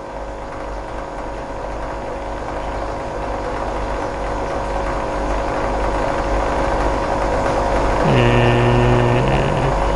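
A steady mechanical hum with a deep drone and a few steady tones, slowly growing louder. Near the end a man's voice holds a long, flat 'emm' for about a second and a half.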